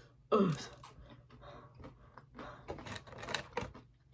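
A short groan of 'ugh', then a scatter of light clicks and crackles during a meal of fried chicken.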